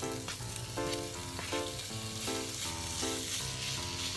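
Diced pork belly sizzling and frying in an oiled pan as it is tipped in and stirred with a spatula, over light background music.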